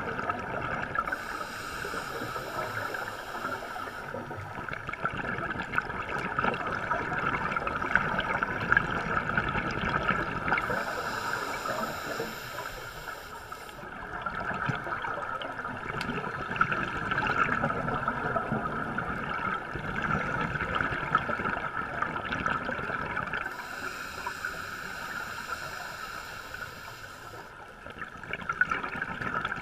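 Scuba diver's regulator exhaust bubbles, heard underwater through a camera housing: three exhalations, each a bubbling rush of three to four seconds, over a steady muffled hiss.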